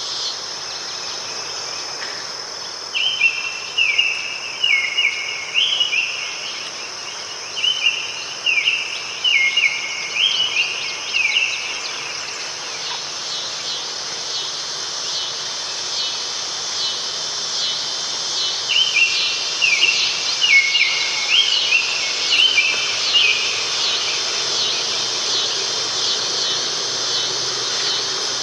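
A steady, high insect chorus, with a songbird singing quick repeated chirped phrases in two bouts, one in the first half and one in the second.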